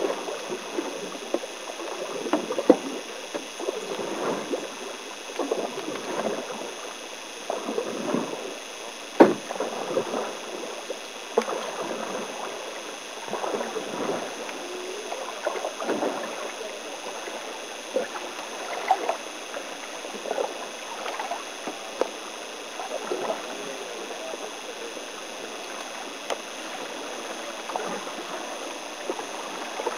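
Canoe paddles stroking through calm water: a swish and splash repeating about every two seconds over a light trickle, with a couple of sharp wooden knocks, the loudest about nine seconds in.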